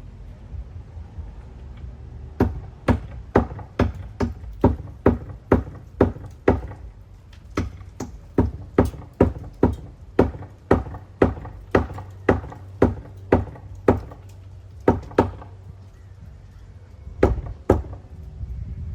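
A steady run of sharp hammer blows, about two a second, stopping for a couple of seconds and then two more strikes near the end.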